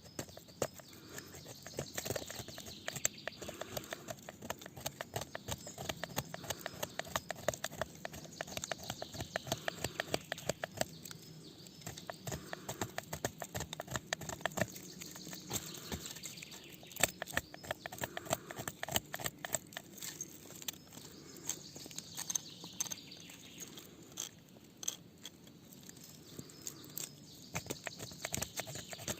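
Wood campfire crackling, with dense irregular snaps and pops.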